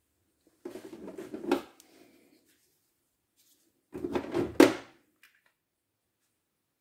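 Two bursts of hard plastic scraping and rattling, each ending in a sharp clack, as Makita 12V lithium-ion battery packs are pulled from their moulded slots in a plastic tool case. The first comes about a second in, the second about four seconds in.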